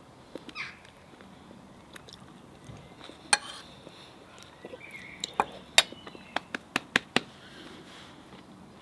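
Metal fork clinking against a ceramic plate while food is gathered: a single sharp clink about a third of the way in, then a quick run of clinks a little over halfway through.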